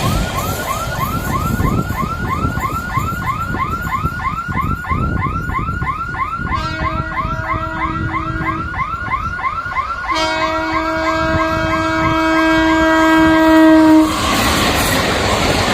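Level-crossing warning siren chirping rapidly, about four chirps a second. Over it a train horn sounds one blast of about two seconds, then a longer blast of about four seconds that grows louder and cuts off.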